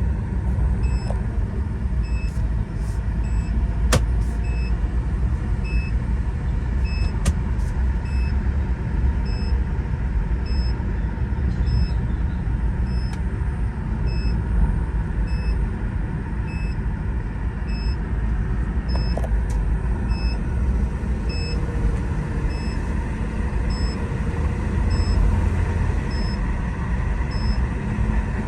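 Chevrolet Cruze 1.8's four-cylinder engine and tyres giving a steady low rumble on a road test after a transmission repair, with a faint high tick repeating about once a second.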